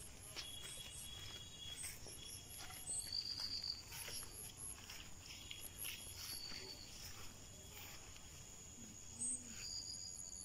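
Insects calling in overgrown vegetation: a steady high-pitched drone, with repeated trains of rapid chirps and intermittent buzzing trills over it.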